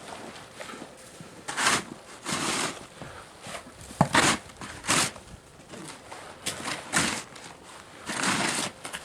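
Aluminium snow shovel digging and scraping through snow, a string of short crunching scrapes about one a second, unevenly spaced, as a path is cleared.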